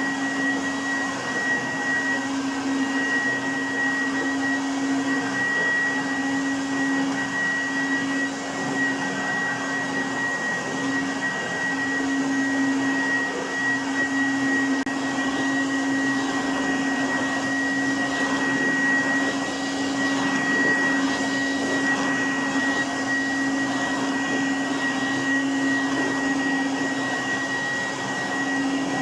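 Goblin Laser 2200X upright vacuum cleaner running steadily, its motor giving a constant high whine over a broad rushing noise.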